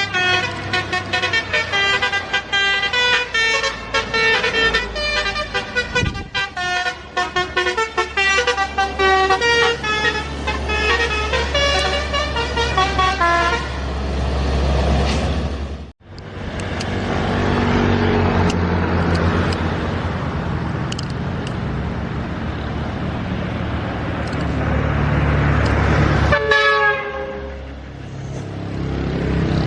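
Bus 'telolet' horn, a multi-tone musical air horn, playing a quick run of changing notes for about fourteen seconds over a low engine drone. After a sudden break, a bus engine and road noise run steadily, and a second short burst of horn notes sounds near the end.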